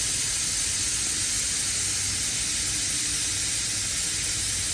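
Compressed air hissing steadily out of a semi truck's air brake system as it is drained of air.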